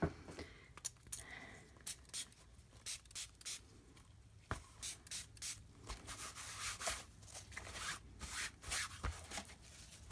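A hand spray bottle of water misting onto dyed sari silk, alongside gloved hands rubbing and scrunching the damp silk against deli paper: a string of short, irregular hissing and rubbing bursts, with one sharp click about four and a half seconds in.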